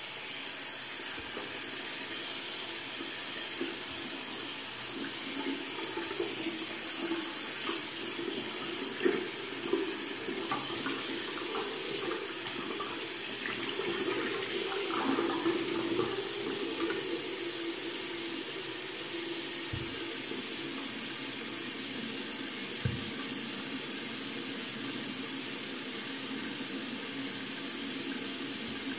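Bathroom sink faucet running steadily into the basin, with irregular splashing in the middle stretch as hands and a washcloth work under the stream. Two short low thumps come later.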